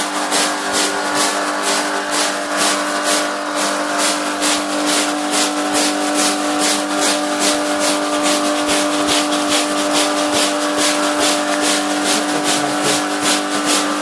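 Stiff brush scrubbing a soapy wool rug in quick, regular strokes, about three swishes a second, over a steady machine hum.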